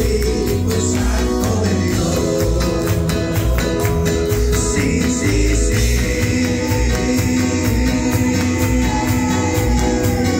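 Live church praise music with singing over a steady, upbeat rhythm.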